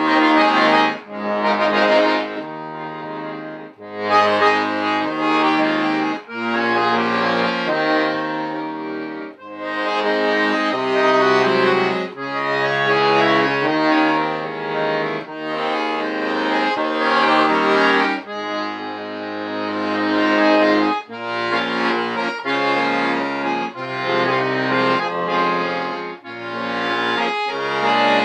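Accordion played in sustained chords over a bass line, in phrases broken by short pauses.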